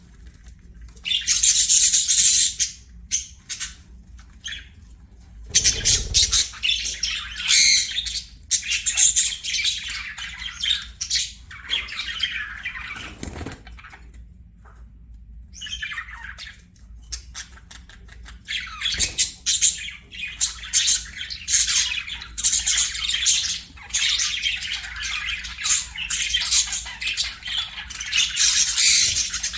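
Budgerigars chattering and chirping in a dense, rapid stream of high warbles and squawks, broken by a brief lull about halfway through.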